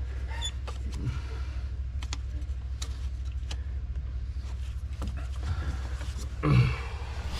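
Hand tools working on tractor parts: scattered metallic clicks and taps over a steady low hum. A brief louder grunt-like sound comes about six and a half seconds in.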